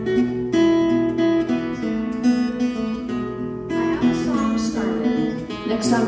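Craven Songbird tenor guitar, a small O-body acoustic of Sitka spruce and mahogany, being played in picked and strummed notes and chords, with a second guitar alongside.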